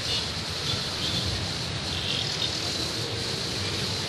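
Steady street-traffic ambience: a continuous rumble of passing vehicles.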